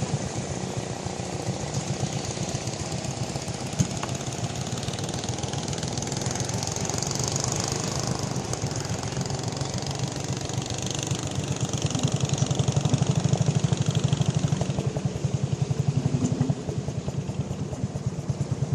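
Boat engine running steadily with a fast, even chugging pulse, getting louder about twelve seconds in, under a steady high hiss.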